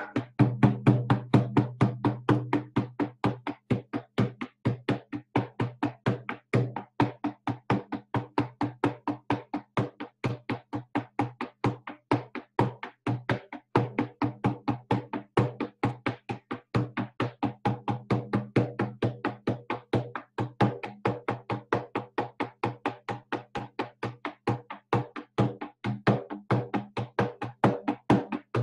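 Hand-held frame drum with a painted rawhide head, struck with a beater in a steady, fast, even beat of about four strokes a second, its low ring carrying under the strikes: shamanic journey drumming.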